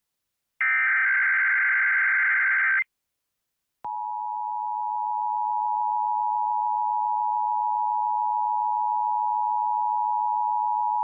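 Emergency Alert System tones. A harsh buzzing burst of digital header data lasts about two seconds. After a short pause, the steady two-note EAS attention signal starts about four seconds in and holds unchanged.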